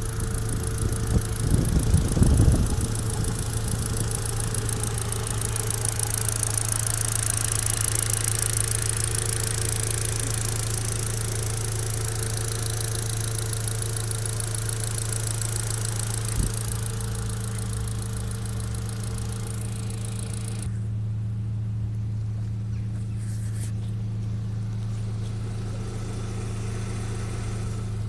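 Turbocharged 1.8T four-cylinder engine running steadily, with a slight knock in it. It gets louder for a moment about two seconds in, and there is a single sharp click later on.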